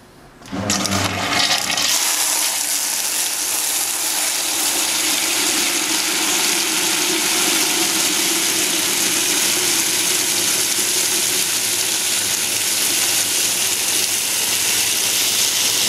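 Flood coolant pouring from three quarter-inch 90° nozzles into a plastic bucket: a steady splashing rush that starts about half a second in. The coolant is coming out fast, aerated and frothy.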